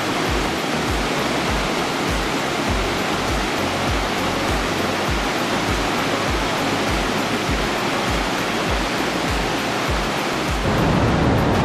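Creek cascades rushing and tumbling, a steady full noise of falling water. About ten and a half seconds in it grows louder and deeper.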